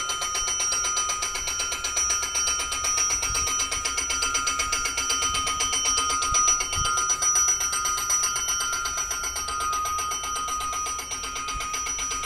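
Electric railway station warning bell ringing steadily with rapid, even strikes, announcing a train approaching from the Mendrisio direction.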